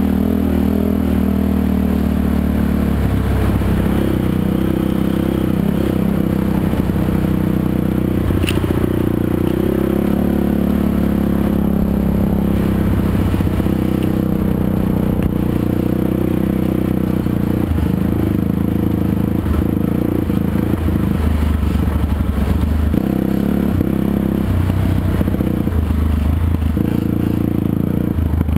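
ATV engine running under way along a dirt trail, its note rising and falling with the throttle, with the machine rattling and scraping over the rough ground.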